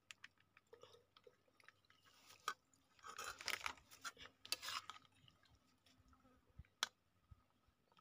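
Steel serving spoon scraping curry out of a metal kadai and tipping it onto paper plates: faint scattered clicks, with a few short scrapes about three to five seconds in.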